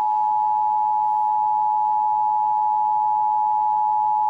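Emergency Alert System attention signal: two steady tones near 853 and 960 Hz sounding together as one unbroken chord, marking the start of a broadcast station's monthly EAS test.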